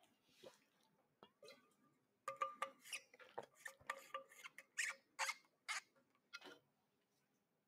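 Faint irregular clicks and small handling noises, a cluster of them over a few seconds in the middle.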